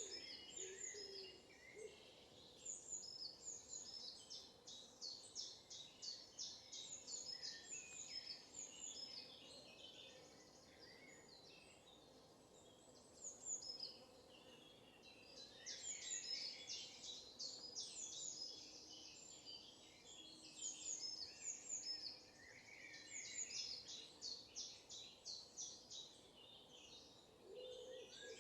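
Several small songbirds singing at once, a steady chorus of quick, high-pitched chirps and trills that overlaps almost without pause, easing off briefly about halfway through. The birds are faint.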